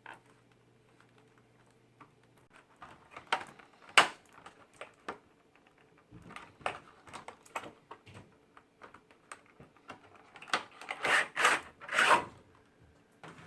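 A tablet case's retail packaging being opened by hand: scattered clicks and knocks of plastic and cardboard, with one sharp click about four seconds in and a run of louder rustling scrapes near the end.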